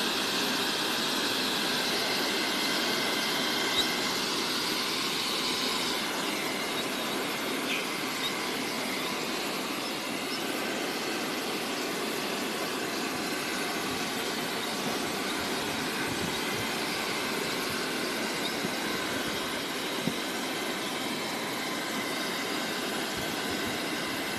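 Handheld hair dryer running steadily, blowing air with a constant motor hum and whine; the high whine is a little stronger for the first several seconds.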